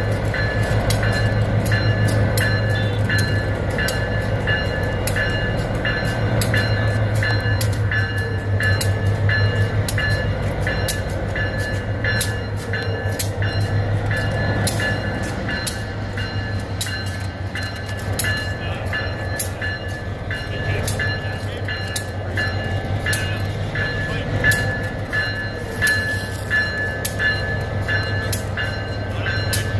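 Diesel locomotive rolling slowly at street level, its engine running with a steady low hum, while its bell rings about twice a second.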